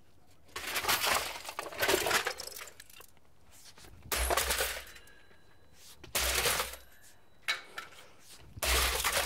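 Sledgehammer blows smashing an Alienware R10 desktop PC on concrete: crashing steel chassis and plastic panels with metal clatter and rattling debris. Two lighter clattering crashes come first, then three heavier strikes with a deep thud, at roughly two-second intervals.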